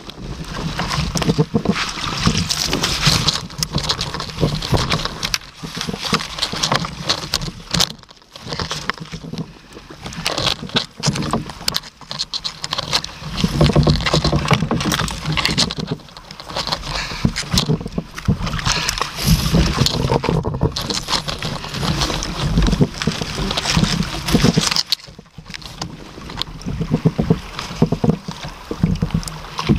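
Close, irregular rustling, knocking and clattering of a kayak angler handling a landing net and gear around a landed salmon, with water sloshing against the kayak.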